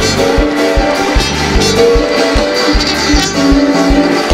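Loud, up-tempo live church praise music with a fast, steady beat of about two and a half beats a second under held instrument notes, with the congregation clapping along.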